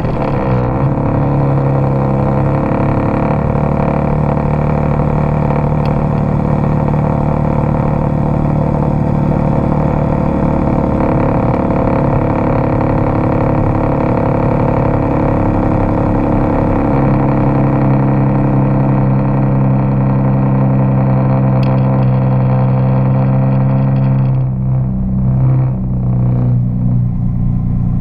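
Nissan 370Z's 3.7-litre V6 running steadily just after start-up, an even engine drone with a change in tone about 24 seconds in when the higher part of the sound falls away.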